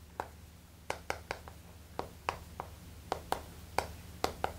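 Chalk writing on a blackboard: a run of short, irregular taps and clicks as the chalk strikes the board, about three or four a second.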